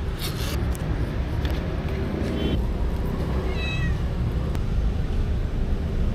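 Stray cats meowing: two short, high meows, about two and a half and three and a half seconds in, over a steady low rumble.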